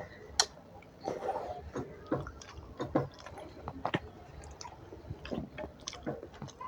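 A person chewing food up close, with wet smacking mouth sounds and sharp clicks at irregular intervals, the loudest about half a second in.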